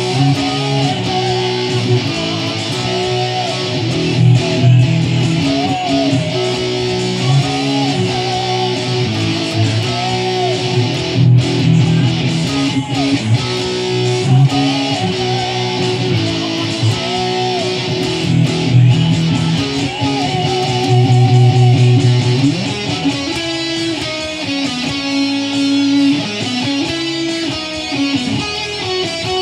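Red Kramer electric guitar, played through an amp, plays a neo-classical metal riff and lead. A repeated phrase ends each time in a held note with vibrato over sustained low notes, and the playing turns to a faster, choppier figure about three-quarters of the way through.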